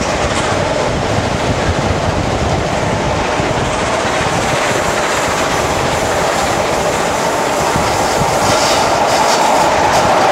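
Passenger train running on the rails: a steady rumble with the clickety-clack of the coach wheels, growing a little louder near the end.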